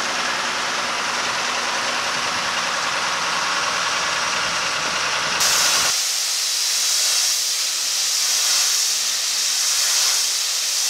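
An engine running steadily under a rush of noise, then, about five and a half seconds in, the hiss of a pressure washer jet spraying a boat's hull.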